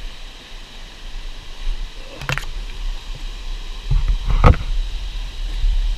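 Steady rush of a tall waterfall with low rumbling. Two thumps break through, the louder one past the middle.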